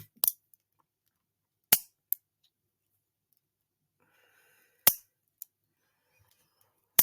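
A handful of sharp, short clicks at irregular gaps of about half a second to three seconds, with near silence between them.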